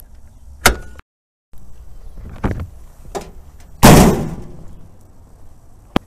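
Sharp click of a 1976 International Harvester Scout II's hood release knob being pulled, then a couple of clunks and one loud metal slam about four seconds in that fades out over about a second.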